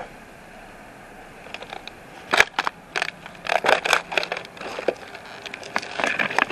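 Hard plastic cases and other junk clattering, knocking and scraping as a hand rummages through a pile. It begins about two seconds in with one sharp knock, then an irregular run of clicks and rattles.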